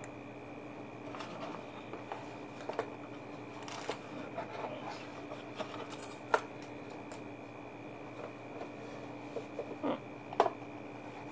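Hands rummaging through a subscription box, with packaging rustling and crinkling, scattered light clicks, and two sharper knocks, about six seconds in and near the end. A steady faint hum runs underneath.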